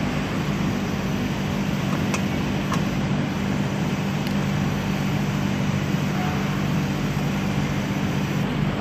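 Steady mechanical drone of shop background noise, with two faint clicks a little over two seconds in as the plastic fender liner and its trim clips are handled.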